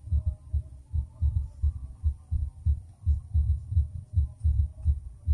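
Wind buffeting the phone's microphone outdoors: irregular low rumbling thumps, several a second.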